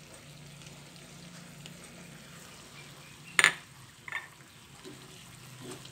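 Spiced chili sauce simmering in a frying pan with a faint steady sizzle while sauce is scraped in from a small glass bowl with a silicone spatula. About halfway through comes one sharp clink of kitchenware, followed by a few lighter taps.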